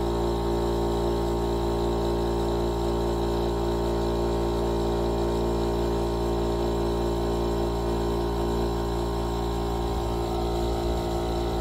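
Background music: a steady, sustained drone of held tones that does not change.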